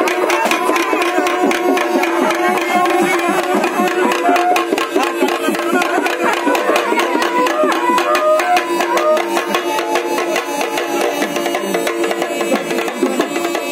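Live folk music: double-headed hand drums beaten in a fast, dense rhythm under a steady drone and a wavering melody line.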